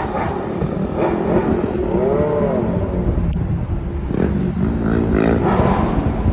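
City traffic and road noise from a moving taxi: a continuous low rumble. There is a brief pitched sound that rises and falls about two seconds in, and another rising pitched sound about five seconds in.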